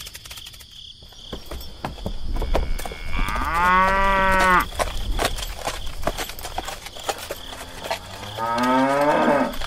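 Two cow moos: one about three seconds in, lasting a little over a second at a steady pitch, and a second one near the end that rises in pitch.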